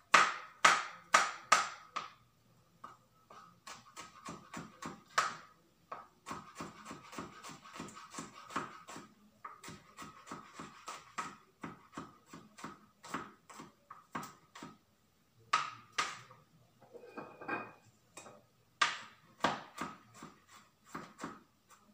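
Kitchen knife chopping on a cutting board: a few loud, evenly spaced chops at first, then runs of quicker, lighter chops with short pauses between them.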